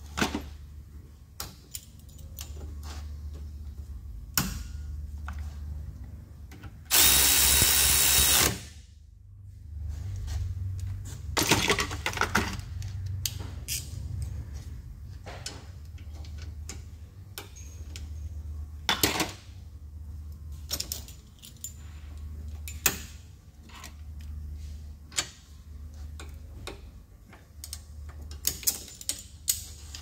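Metal tools clicking and clanking on a car's rear brake caliper bracket as its bolts are fitted with a ratchet and locking pliers. Once, about a quarter of the way through, a power tool runs loudly for about a second and a half. A steady low hum sits underneath.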